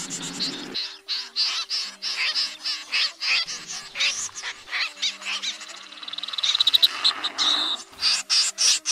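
Snipe calling, a bird-trapping lure recording: many short, sharp calls in quick succession, with a fast run of ticking calls about six seconds in.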